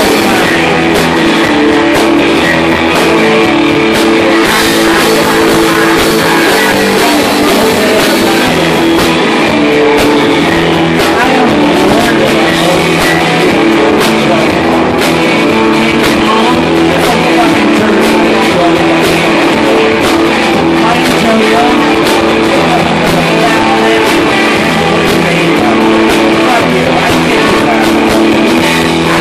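Live rock band playing loudly: electric guitars and drums, with a man singing lead vocals into a microphone.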